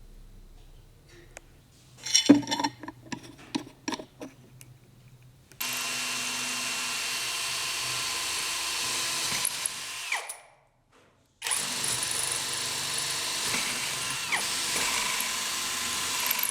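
Handling clicks and knocks for a few seconds, then a power tool running steadily, stopping for about a second and starting again.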